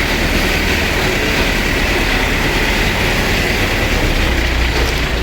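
A 50 kg plastic mixer machine running steadily: a dense, even mechanical noise with a low hum underneath.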